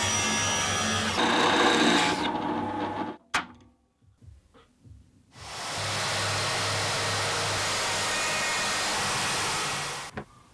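A table saw rips through a stack of thin coloured veneer strips and stops about three seconds in, followed by a sharp click. About two seconds later a plunge track saw cuts a long plywood sheet along its guide rail for about four and a half seconds, stopping shortly before the end.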